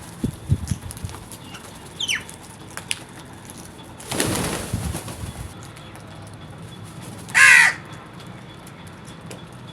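A crow gives one loud, harsh caw near the end. Earlier come a few low thumps, a short falling chirp from another bird, and a second-long rush of noise.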